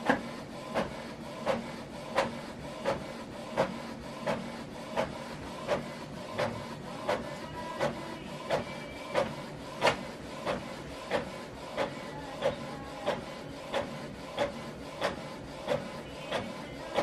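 Canon PIXMA TS7451 inkjet printer printing a double-sided page: the print head carriage passes back and forth over a steady motor hum, with a regular click about every 0.7 seconds.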